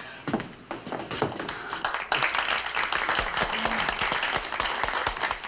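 Audience applauding: a few scattered claps at first, swelling to full, dense applause about two seconds in.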